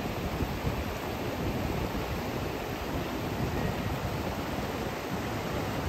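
Mountain river rushing steadily over stones and shallow rapids.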